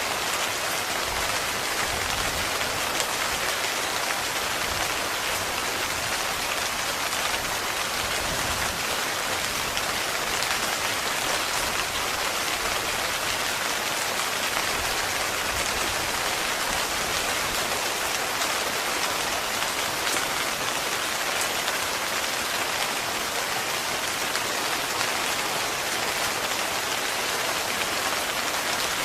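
Heavy rain falling steadily on a tent, an even hiss of drops that keeps on without letting up.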